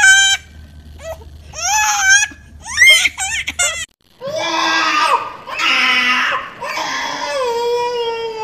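A woman and a baby laughing and squealing in short high-pitched bursts. It cuts off suddenly and gives way to a young child's long drawn-out crying, whose pitch sinks slightly toward the end.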